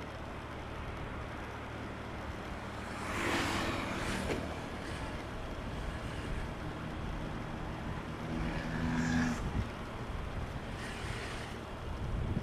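Rush-hour road traffic from the roadside: a steady low rumble with cars passing close by one after another. The loudest pass-by comes about three seconds in, another with engine hum follows around nine seconds, and a smaller one near the end.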